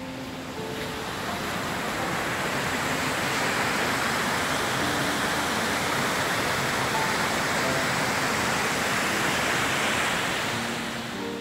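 Steady rushing hiss of river rapids, swelling in over the first couple of seconds and easing off near the end, with a few faint music notes beneath.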